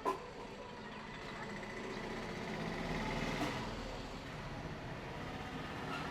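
Road traffic: a motor vehicle passes by, its noise swelling to a peak around the middle and then fading, after a sharp click right at the start.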